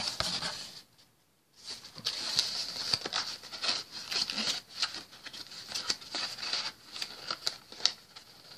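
Rustling, crinkling and small taps of a trading-card starter box's packaging and card decks being handled, in irregular short bursts with a brief gap about a second in.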